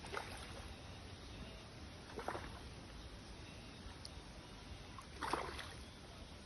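Water splashing faintly in three short bursts, the last the loudest, over a steady low background noise.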